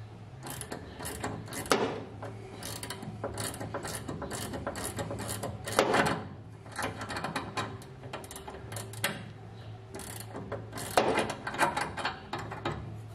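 A ratcheting wrench clicking in short runs, with a few louder metal knocks, as the parking brake cable's threaded adjuster nut is turned to set the cable tension.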